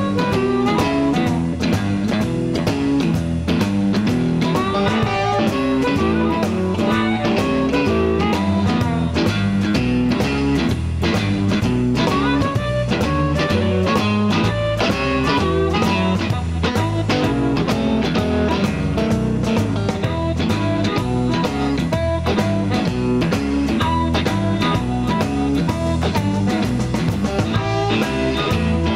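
Live electric blues band playing: amplified harmonica cupped to a handheld microphone, over electric guitar, bass and drum kit.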